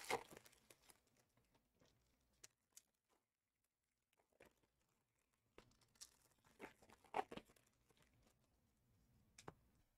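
Faint, scattered crinkles and clicks of foil trading-card packs and cards being opened and handled, mostly near silence, with a small cluster about seven seconds in.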